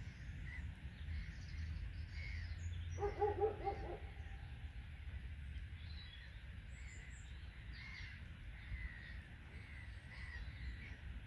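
Birds calling outdoors: a burst of quick repeated calls about three seconds in, the loudest thing here, over small birds chirping throughout.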